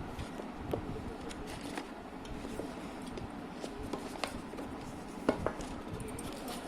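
Hands handling a smartphone and its retail box and packaging: scattered light clicks and taps over a steady low background, with a sharper knock about five seconds in.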